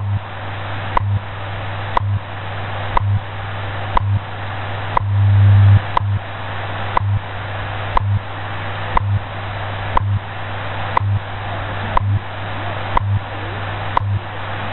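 WWV/WWVH shortwave time signal on 10 MHz received in AM: a short tick every second over steady static hiss. Underneath runs a low hum that pulses in step with the ticks, the station's 100 Hz time code.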